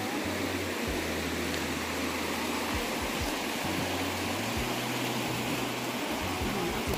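Steady rushing of stream water flowing through the gorge.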